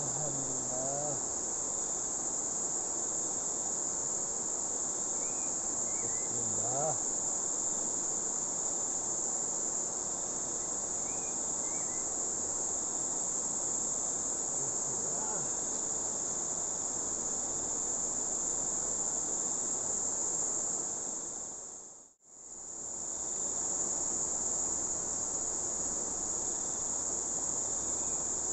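Steady high-pitched insect chorus over the even rush of a swift river. The sound dips away and returns about two-thirds of the way through.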